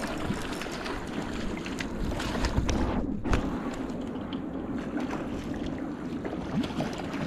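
Steady rush of river water with wind buffeting the microphone, a few small clicks scattered through it, and a heavier low buffet about three seconds in.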